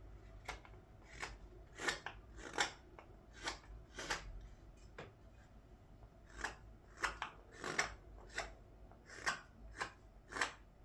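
Carving knife taking short slicing cuts in a green-wood ladle, about a dozen crisp strokes at an uneven pace with a short pause midway.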